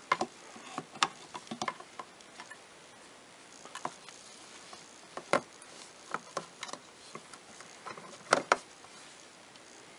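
Irregular plastic clicks and taps as the mirror's plastic backing frame is handled and pressed against the power mirror's actuator mounts. A single louder click comes about halfway through, and a close pair near the end.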